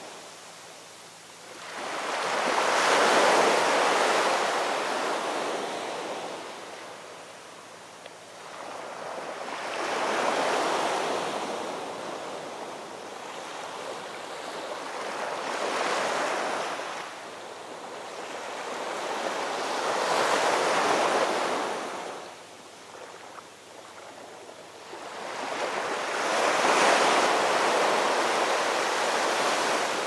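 Storm surf breaking on a rocky shore: five big waves, each swelling up over a second or two, then fading away as the water washes back.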